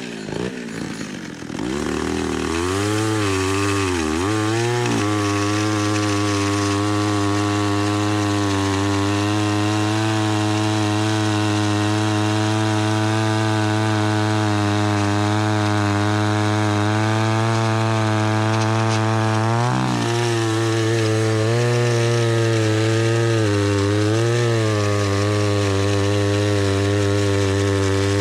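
Homelite Super XL two-stroke chainsaw coming up to speed about two seconds in, then running at high, steady revs through a long cut in wood. The pitch dips briefly about two-thirds of the way through and wavers before settling again.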